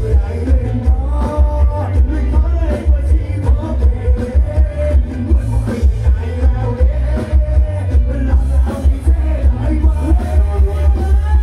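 Live band playing loud amplified dance music through a stage truck's sound system: a heavy bass beat at about two pulses a second, with male voices singing over it.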